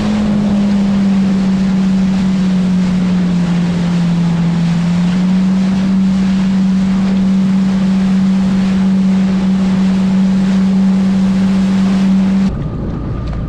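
Jet ski engine running at speed with wind and water spray rushing past. Its steady drone dips slightly in pitch for a few seconds, comes back up, and cuts off abruptly near the end.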